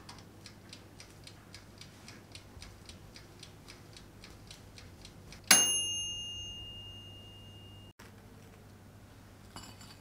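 Oxone 18-litre toaster oven's wind-up timer ticking about four times a second, then its bell dings once about five and a half seconds in and rings on, fading: the timer has run out and the toast is done.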